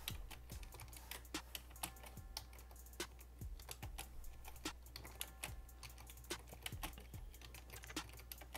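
Typing on a computer keyboard: irregular key clicks in quick runs with short pauses, over a low steady hum.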